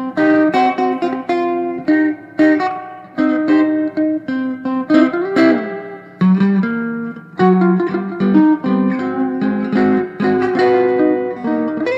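Fender Telecaster electric guitar played through a custom amplifier built for it, heard as two overdubbed rhythm parts forming a duet: one recorded with both pickups, the other with the bridge pickup. Picked notes follow one another quickly, with one note bent near the middle.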